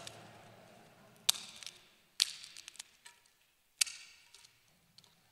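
Three sharp clinks, about a second in, two seconds in and near four seconds, each with a short ring and a few lighter ticks after it: metal communion vessels being handled on the altar.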